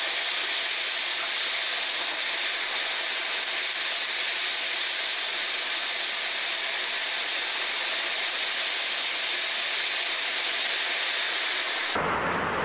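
Steady, loud hiss with no low sound in it, cutting in abruptly and cutting off abruptly near the end.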